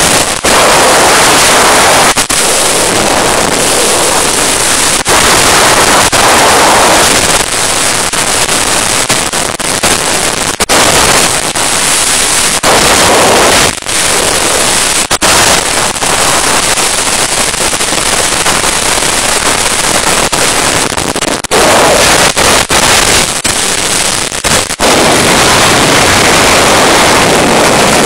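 Wind blasting over a phone microphone on a motorcycle running at around 170 km/h, overloading it into a harsh, distorted rush with brief dropouts. The engine is buried under the wind.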